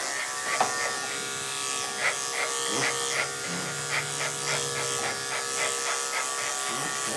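Andis 5-speed electric dog clipper with a 7 blade running steadily, buzzing as it is worked through a dog's coat.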